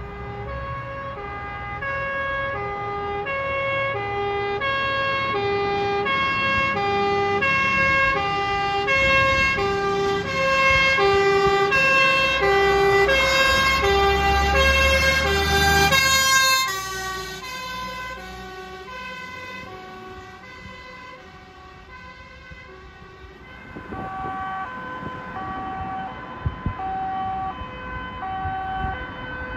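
Swiss fire engine's two-tone siren, alternating steadily between two notes and growing louder as the truck approaches, with the truck's engine rumbling as it passes close; the sound cuts off suddenly just past the middle. After a quieter stretch, another emergency vehicle's two-tone siren comes in fainter near the end.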